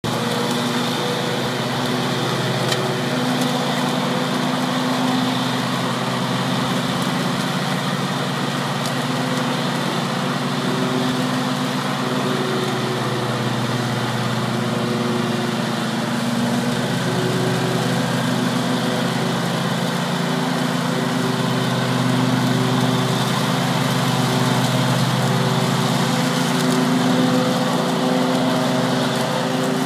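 John Deere riding lawn tractor's engine running steadily as it mows grass.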